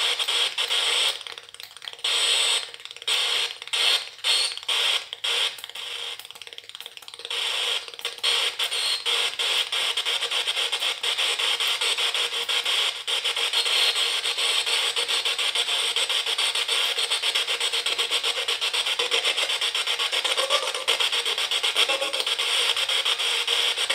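Homemade spirit box, an FM radio module swept continuously through the band by a signal decoder, hissing static through its speaker as it scans. The hiss is chopped into short stutters for the first several seconds, then runs steadily with a fast, fine flicker.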